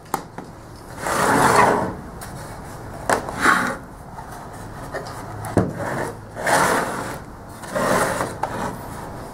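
Plywood box parts handled on a wooden workbench: several sliding, rubbing scrapes of wood on wood, each about half a second long, with a few sharp knocks in between.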